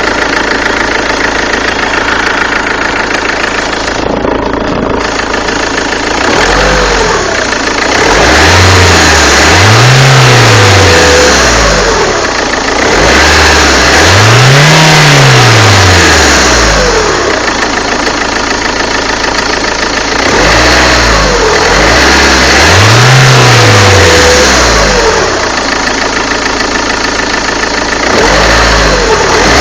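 Peugeot 406 HDi diesel engine idling steadily, then revved up and allowed to fall back to idle several times. The owner hears a strange noise from it that he can't place.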